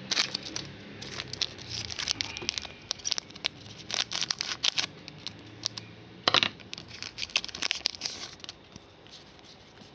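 Foil wrapper of a Donruss Soccer trading-card pack being torn open and crinkled by hand: irregular clusters of sharp crackles, the loudest about six seconds in.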